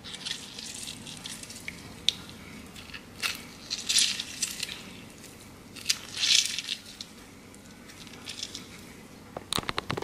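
Fresh lime squeezed by hand over a bowl of soup: short wet squishing, crackling bursts of the rind and pulp, a few times. Near the end, a quick run of clinks as the bowl and fork are handled.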